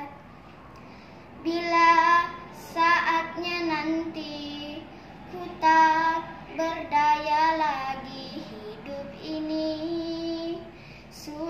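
A young girl singing an Indonesian worship song, several sung phrases with long held notes after a short pause, one note near the middle wavering.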